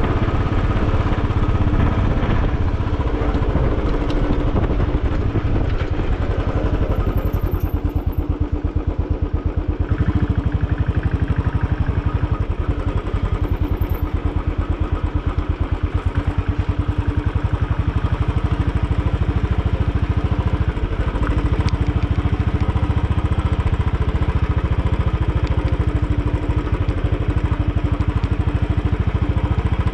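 Royal Enfield Bullet 500 EFI's single-cylinder engine running as the motorcycle is ridden, with an even beat of separate firing strokes throughout.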